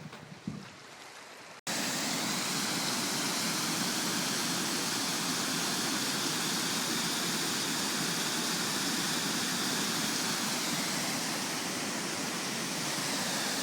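Waterfall: a steady, even rush of falling water that starts suddenly under two seconds in, after a few quiet seconds with a couple of soft knocks.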